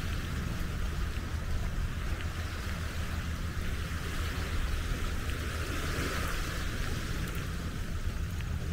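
Wind rumbling on the microphone over a steady outdoor hiss, which swells briefly about six seconds in.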